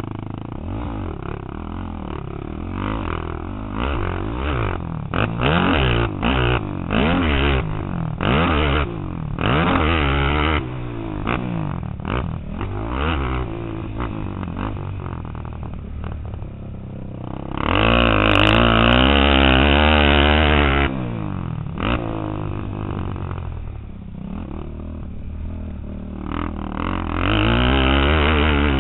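Race quad's engine revving hard and backing off again and again while it is ridden around a dirt motocross track, pitch climbing and dropping through the gears. About two-thirds of the way in comes a louder full-throttle pull lasting about three seconds.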